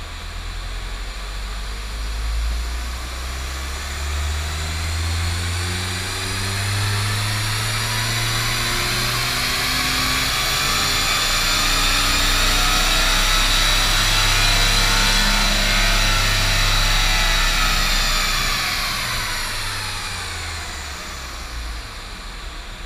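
Volkswagen MK6 Jetta TDI's 2.0-litre four-cylinder turbodiesel, DPF-deleted and with a cold air intake, making a full-throttle chassis-dyno pull. The engine climbs in pitch with a high whine rising alongside it, peaks about two-thirds of the way through, then winds down as the run ends.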